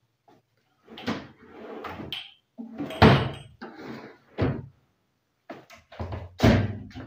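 Modular kitchen cabinet drawers being pushed shut and cabinet doors opened, a series of sliding rumbles and knocks. The loudest come about three seconds in and again near the end.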